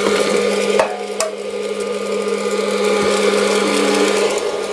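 Hot-air popcorn machine running steadily, its fan motor giving a constant hum and whoosh while the kernels heat before popping. A couple of short knocks about a second in.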